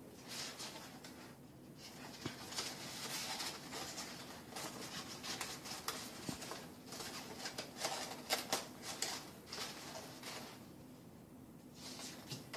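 Paper pieces of an IQ lamp rustling and rubbing against each other as they are bent and slotted together by hand, in irregular bursts with small ticks.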